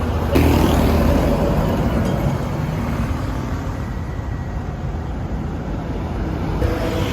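Steady low rumble of a motor vehicle running, jumping louder about half a second in and easing off over the next few seconds.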